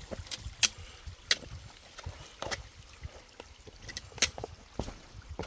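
Hiker's footsteps on wet slate rock: irregular sharp clicks and scuffs, a few of them loud, over a thin trickle of water running across the stone.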